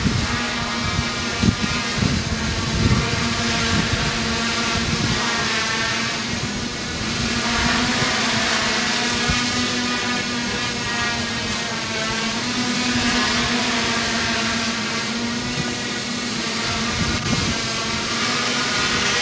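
Quadcopter's motors and propellers whirring steadily in flight: a buzzing drone with a whine above it that wavers as the motors adjust their speed. Wind buffets the microphone in the first few seconds.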